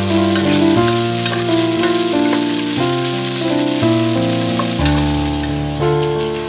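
Food sizzling and frying in hot oil, an even hiss, under background music whose held notes change about once a second.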